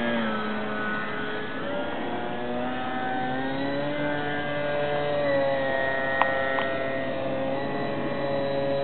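Small foam model airplane's motor and propeller whining, the pitch bending up and down, then holding steady for the last few seconds. Two sharp clicks a little after six seconds in.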